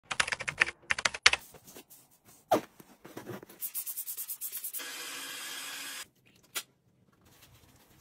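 Rapid runs of small clicks and taps from objects being handled, two sharp knocks, scattered rustling, then a steady hiss for about a second that stops abruptly, and a last click.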